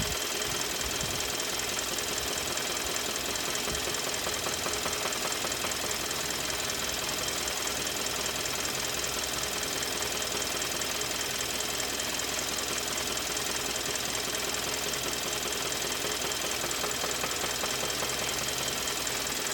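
2013 Kia Optima engine running with a steady, rapid knocking. The car has set error code P0014, and the owner takes the knock as a sign that the engine is about to blow.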